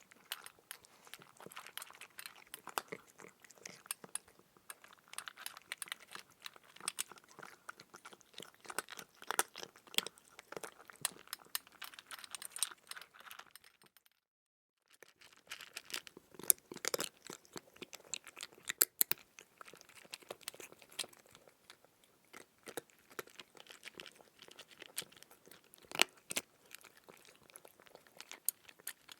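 Crunchy chewing sound effect: a dense, irregular run of crunches and crackles like food being bitten and chewed, with a brief total break about halfway through.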